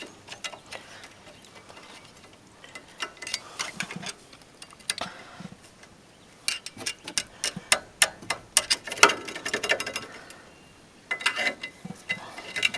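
Screwdrivers clinking and scraping on metal brake parts as they are jammed in to pry off stuck rear brake pads. The sound comes as irregular bursts of sharp metal clicks and taps, busiest a little past the middle.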